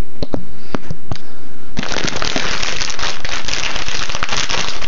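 Close-up handling noise at the microphone: a few sharp clicks and knocks, then about two seconds in a loud, dense crackling rustle.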